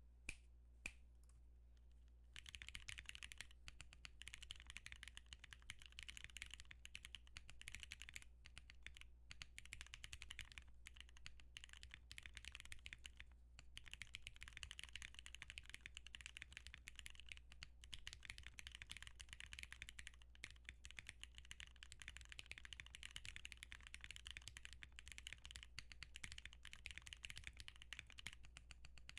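Fast, continuous typing on a Bisoromi x AEBoards Kikuichimonji mechanical keyboard with lubed Cherry MX Black Hyperglide linear switches in a polypropylene plate. Two single keystrokes come first, then steady typing starts about two seconds in, with a few short pauses.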